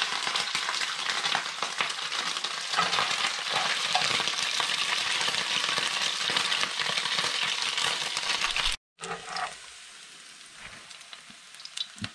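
Shredded squirrel meat frying in hot oil in a cast iron skillet, sizzling with dense, fast crackling and popping as the moisture in the wet meat hits the oil. The frying cuts off abruptly about nine seconds in, leaving a much quieter stretch with a few faint clicks.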